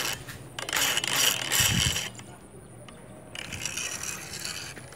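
Fishing reel cranked in two bursts of ratcheting clicks, one of about a second and a shorter one a little over three seconds in.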